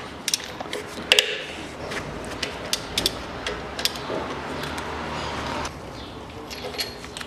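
Hand ratchet wrench on a long extension clicking in irregular runs as an alternator mounting bolt is undone, with a few sharper metal clicks, the sharpest about a second in.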